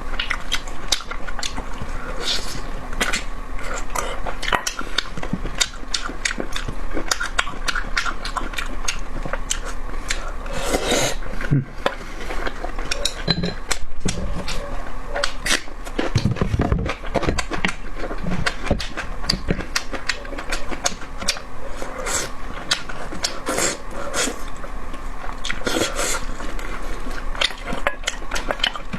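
Close-miked eating sounds of someone chewing and biting meat, a steady stream of wet mouth clicks and smacks, over a faint steady hum.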